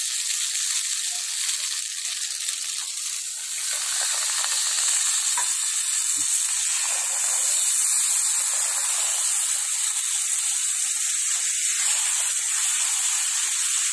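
Steady sizzling hiss of coconut milk cooking in a hot pan of ghee-fried maida flour as it is stirred with a wooden spatula.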